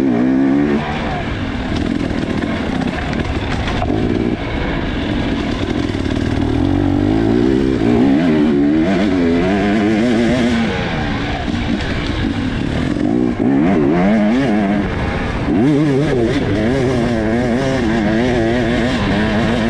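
Dirt bike engine at race pace, its pitch rising and falling again and again as the throttle is opened and closed, heard from a helmet-mounted camera.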